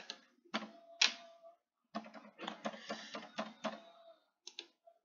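Computer keyboard keys clicking. A few single keystrokes come first, then a quick run of taps for about two seconds, and two more near the end.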